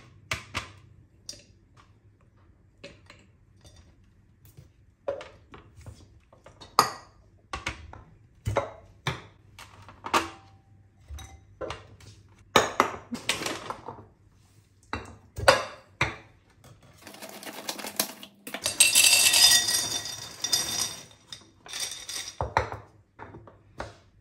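Hard dog treat sticks set and dropped into glass jars, making scattered taps and clinks on the glass, with bamboo lids pressed on. About seventeen seconds in, a few seconds of dense rattling as hard bone-shaped dog biscuits go into a glass jar.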